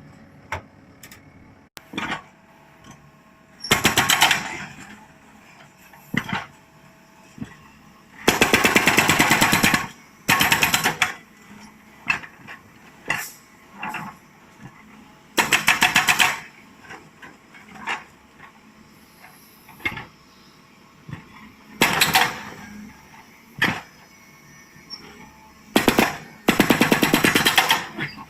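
Hydraulic rock breaker on a JCB 3CX backhoe loader hammering in repeated bursts of rapid blows, each burst lasting a second or two. Short pauses between bursts carry lighter single knocks.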